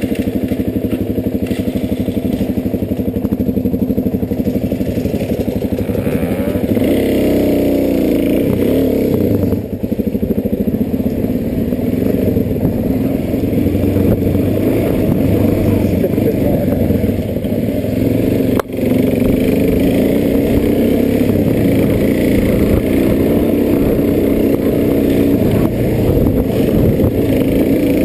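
Dirt bike engine running under load as it is ridden, its pitch rising and falling with the throttle. The level dips briefly about ten seconds in and again near nineteen seconds, the second time with a sharp click.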